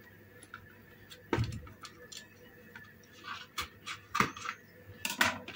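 A vacuum pack in a cardboard sleeve being handled and cut open with a kitchen knife over a plastic cutting board: scattered clicks and taps, a soft thump about a second and a half in, and light crinkling of the packaging.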